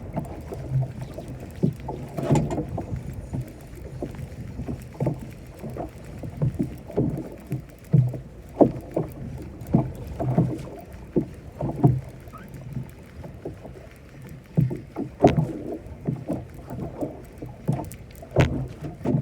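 Waves slapping and knocking against the hull of a small boat at sea, irregular, about one or two a second, with a few sharper knocks, over a low steady rumble.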